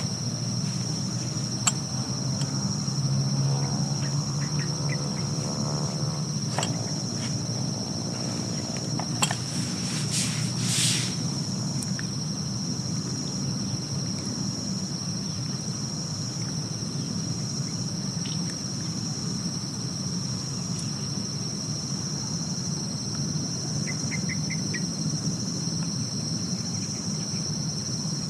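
Steady, high-pitched chorus of insects over a steady low rumble of distant traffic. For the first several seconds a distant engine drones, its pitch sliding.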